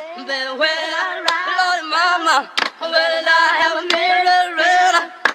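Hip-hop beat intro built on a sung vocal sample with no bass under it, its melody gliding up and down, with short sharp cuts about every second and a quarter.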